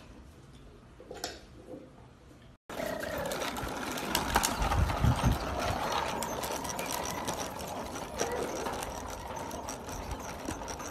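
After a quiet start, a steady rattling, buzzing noise begins abruptly about three seconds in. It comes from a child's small ride-on toy with plastic wheels rolling over concrete.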